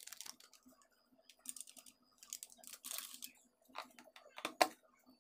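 Faint, scattered small clicks and scrapes of a spoon and spice containers as ground spices are added to a steel mixing bowl, with one sharper click about four and a half seconds in.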